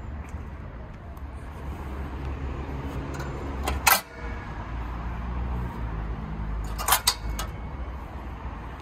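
Sharp metallic clicks as a hand touches the chrome grille shell of a 1982 Rolls-Royce Silver Spur: one about four seconds in and a quick pair near seven seconds. A steady low rumble runs underneath.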